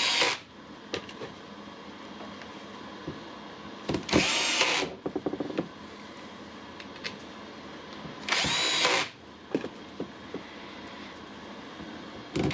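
Milwaukee cordless impact wrench test-run with no load in short bursts of about a second, two of them about four seconds apart, each with a whine rising and falling as the motor spins up and down. Small handling clicks fall between the bursts. It is being checked after its anvil was cleaned to cure a bad running sound.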